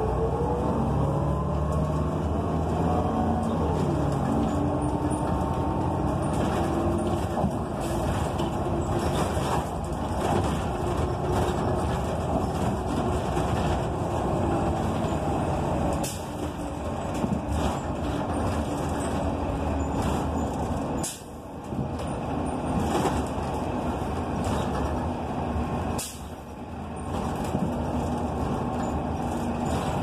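Ride inside a city transit bus with a Cummins Westport ISL G natural-gas engine and Allison B400R automatic transmission, heard while the bus is under way. A whine rises as the bus accelerates near the start, then the engine and drivetrain run steadily, with a few sharp knocks and two brief drops in sound in the second half.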